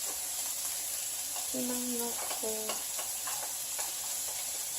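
Sliced onion, mushrooms, bacon and green bell pepper sizzling in butter and bacon fat in a frying pan, with a steady hiss, while a utensil stirs them with scattered clicks and scrapes. Two brief pitched sounds come about halfway through.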